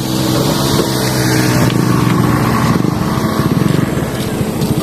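Motorcycle engine running at a low, even beat. The beat grows plainer about two seconds in.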